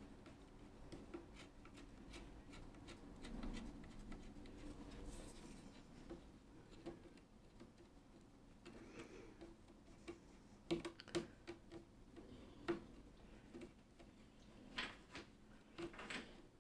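Faint scattered ticks and clicks of a metal pin working between the warp threads of a loom, pressing the weft down at the edge of the cloth. The clicks come more often in the second half.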